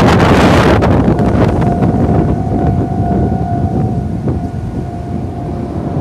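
Heavy wind buffeting the microphone, over a steady electronic tone from the level crossing warning alarm that stops shortly before the end.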